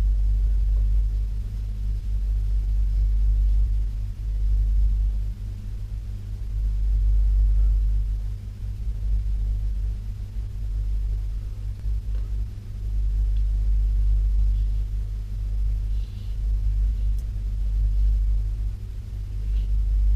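Steady low rumble with a hum in it, slowly swelling and easing in loudness.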